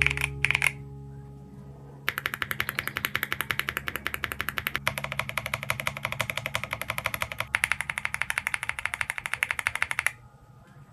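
Outro music: a sustained low chord under a rapid, very even clicking rhythm that stops about ten seconds in, leaving a faint two-tone hum.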